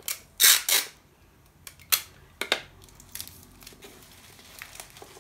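Plastic sheeting crinkling and rustling under hands as a bouquet is handled on it: one loud crinkle about half a second in, a few shorter ones over the next two seconds, then faint light clicks.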